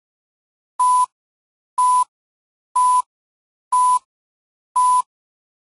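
Film-leader countdown sound effect: five short beeps at the same pitch, one a second, each with a faint hiss, with silence between them.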